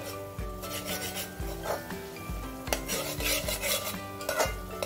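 Steel spoon stirring and scraping a frying onion and garlic-ginger paste around an aluminium pot, in uneven scrapes. Background music with a steady beat plays underneath.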